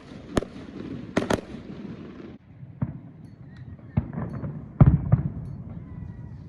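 Fireworks going off: a series of sharp bangs and cracks with a rumbling tail, one right at the start, a quick double crack about a second in, and the loudest cluster of bangs about five seconds in.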